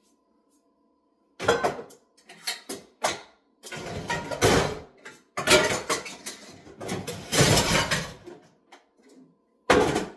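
Dishes and a frying pan being washed in a kitchen sink: clattering and scraping in irregular bursts that start after about a second and a half of quiet.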